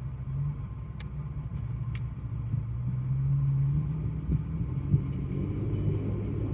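Off-road truck's engine running at low revs, a steady low drone that wavers and drops slightly in pitch partway through. There are two faint clicks about one and two seconds in.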